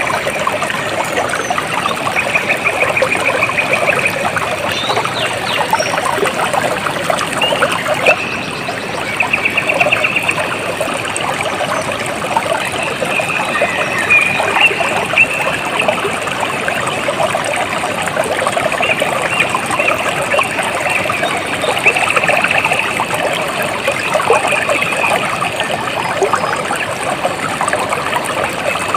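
Running water trickling and splashing steadily. A high, rapid trill comes and goes over it every few seconds.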